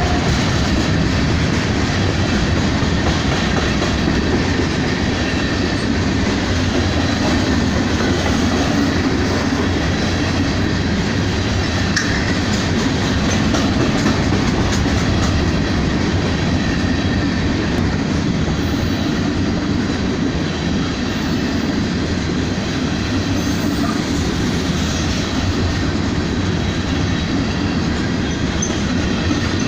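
Freight train cars rolling past, a loud steady rumble of steel wheels on the rails with clatter over the track.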